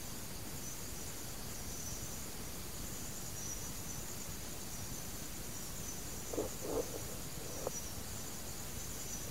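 Insects chirring steadily and high-pitched in the background of an old sermon recording, over a constant hiss. Two faint short sounds come about six and a half seconds in, and a small click near eight seconds.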